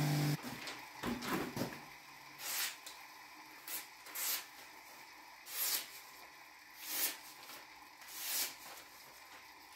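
The motor hum of a bench-mounted MDF sharpening wheel stops abruptly at the start. Then comes a series of soft, papery swishes, roughly one every second or so: a freshly sharpened knife slicing through a sheet of paper to test its edge.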